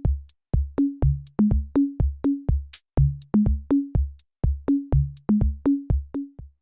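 Electronic background music: a drum-machine beat with deep kick drums, crisp snare or hi-hat hits and short bass notes, about three hits a second, cutting off abruptly at the end.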